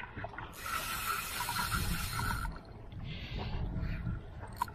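Fishing reel's drag buzzing for about two seconds as a fish pulls line off, then a shorter buzz, over a low rumble of wind and water.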